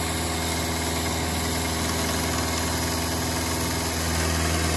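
Carbide-insert cutter (APKT inserts) on a Bridgeport-type mill taking a steady cut across a 4140 heat-treated steel shaft, with the cutter vibrating, alongside the hiss of an air blast on the cut.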